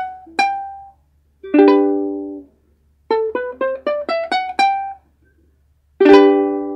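Ukulele played solo: a few single plucked notes, then a chord about one and a half seconds in that rings out. A quick run of about seven single notes climbs in pitch, and a final chord near the end is left ringing.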